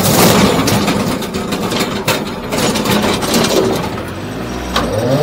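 Bobcat CT2025 compact tractor's diesel engine working hard under load as the loader pushes into brush and a tree, with sharp cracks of breaking wood. The engine pitch rises near the end.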